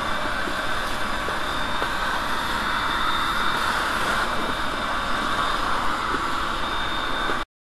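VW 2.0-litre engine idling steadily with a fresh water pump fitted, coolant circulating and still purging air. The sound cuts off suddenly near the end.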